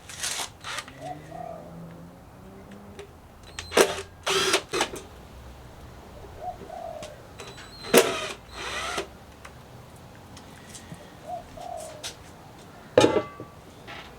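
Power drill/driver run in short bursts, a fraction of a second each, about every four seconds, backing out the lid screws of a rack-mount lithium battery case. A pigeon or dove coos faintly in the background.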